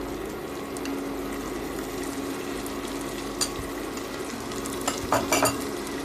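Spice paste sizzling in hot oil in a frying pan, with a steady low hum beneath. A sharp clink about three and a half seconds in and a quick cluster of clinks around five seconds, from a spoon and small bowl knocking.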